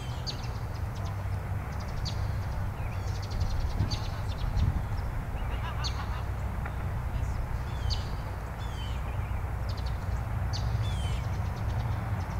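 Tecsun PL-660 shortwave radio giving steady static hiss between stations as it is tuned through the 31-metre band. Birds chirp over it, with short chirps and several falling calls.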